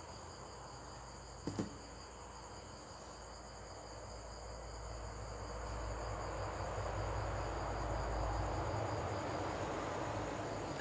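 Crickets trilling steadily in the background. A low rushing noise swells through the middle seconds and eases near the end, and there are two soft knocks about a second and a half in.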